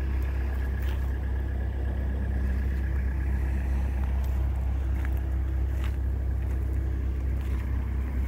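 A motor running steadily: an even low rumble with a faint steady hum above it.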